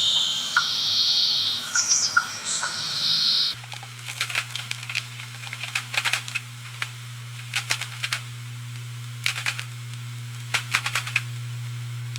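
Coffee shop ambience. A loud high hiss with short breaks and a few sharp clicks changes abruptly, about three and a half seconds in, to a steady low hum with scattered clinks and clicks.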